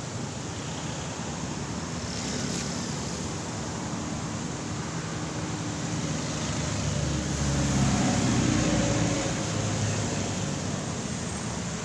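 Road traffic passing on a bridge: cars and motorcycles going by close to the microphone, with a steady rush of tyres and engines. One vehicle passes louder about eight seconds in.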